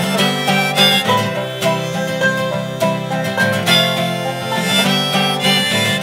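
Acoustic guitar and banjo playing together under a harmonica, an instrumental passage of a folk song with steady strummed and picked rhythm.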